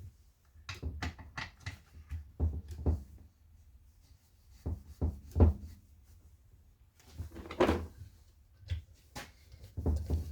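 Recoil starter of a 45cc ROK chainsaw (a Zenoah G4500 clone) being pulled over and over, about six pulls, each a short rasping clatter. The engine turns over without firing while a compression gauge builds up, reading about 150 psi.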